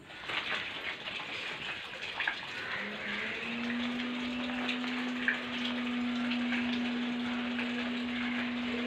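Water running or spraying, with a steady low hum that joins about three seconds in and holds.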